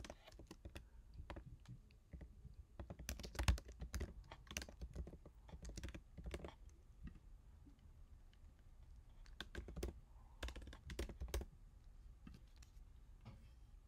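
Typing on a computer keyboard: quick runs of keystrokes in two main bursts, a few seconds in and again past the middle, with a quieter pause between.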